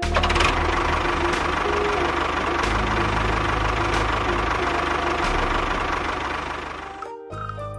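A small engine or motor running with a rough, knocking rattle. It fades out about seven seconds in, and music starts near the end.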